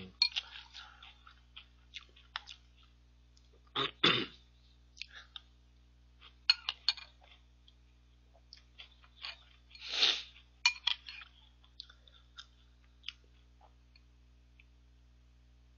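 Eating sounds: a metal spoon clicking against a ceramic bowl and chewing of ice cream mixed with Jolly Pong puffed-wheat cereal, in scattered small clicks, with two louder short noises about four and ten seconds in.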